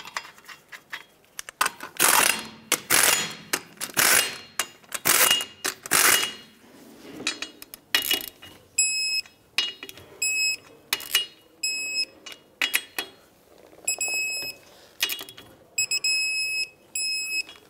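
A torque-wrench ratchet clicks in strokes as the wheel's lug nuts are tightened to 100 foot-pounds. From about nine seconds in, short high electronic beeps come again and again between the strokes: the wrench signalling that the set torque is reached.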